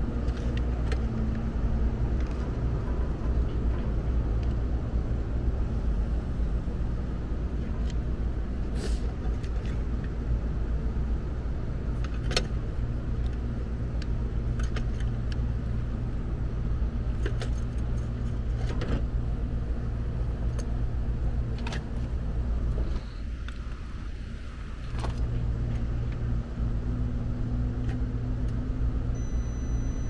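A steady low mechanical hum runs throughout and drops away briefly about three-quarters of the way through. Over it come a few light metallic clicks and taps from hand tools and wire connectors being worked.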